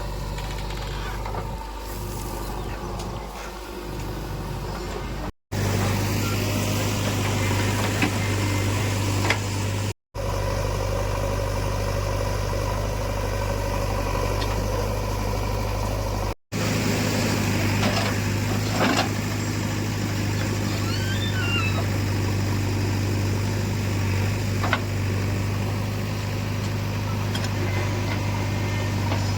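Diesel engines of a backhoe loader and a tractor running steadily, with a few sharp knocks. The sound drops out abruptly three times, at about 5, 10 and 16 seconds in.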